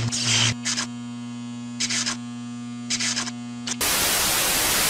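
Electrical buzzing hum broken by short crackles of static, then from about four seconds in a steady loud hiss of TV static (white noise).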